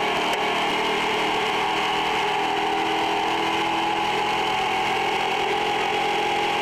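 Stadium Super Truck's V8 engine running steadily at speed, heard from inside the cab.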